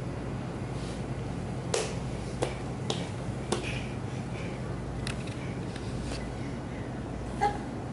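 About half a dozen short, sharp taps scattered irregularly over a steady low hum: a baby's hands patting a hardwood floor as he crawls.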